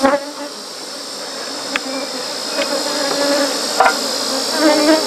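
Honeybees buzzing around a hive, with three sharp knocks as the corrugated roof sheet is handled on the wooden hive box, the loudest right at the start.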